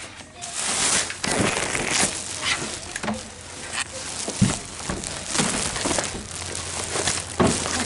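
Plastic garbage bag rustling and crinkling as it is carried and handled, with a few sharp knocks.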